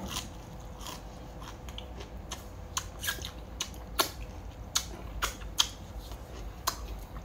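Someone eating crab, the mouth biting and chewing with a string of irregular sharp crunches and clicks.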